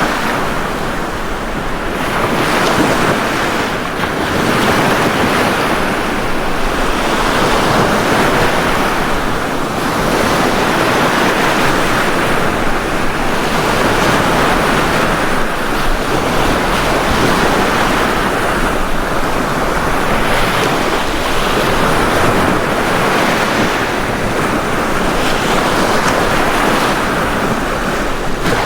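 Ocean surf: waves breaking and washing onto a beach in a continuous rush that swells and eases every few seconds.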